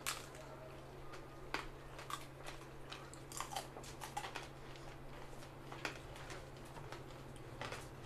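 Close-up mukbang eating sounds from several people: scattered chewing and crunching with small clicks and rustles, over a steady low hum.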